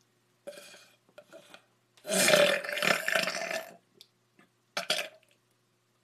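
A young man's long, loud burp of almost two seconds, about two seconds in, with a few fainter sounds before it and a brief one near the end.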